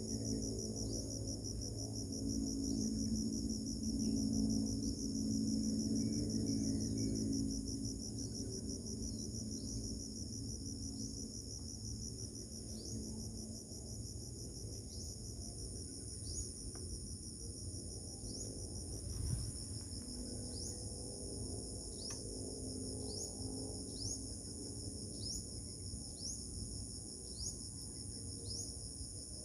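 Insects trilling steadily at a high pitch, with short chirps repeating about once a second, over a low steady hum.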